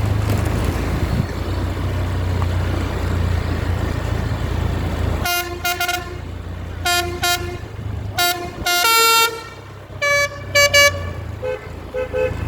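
A bus's telolet musical horn playing a quick tune: a run of short toots at changing pitches, with softer, lower toots near the end. Before it, about five seconds of steady low engine rumble.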